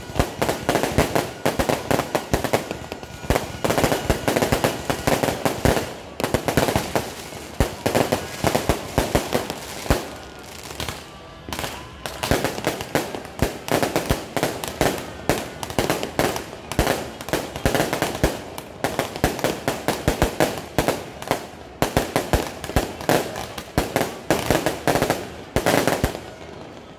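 Fireworks display going off in a dense, rapid barrage of bangs and crackles, with a few short lulls between volleys.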